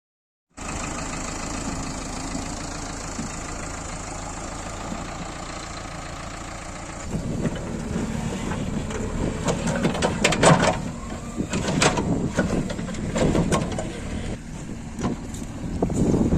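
JCB 3DX backhoe loader's diesel engine running steadily. About seven seconds in the sound turns louder and uneven, with repeated sharp knocks over the engine.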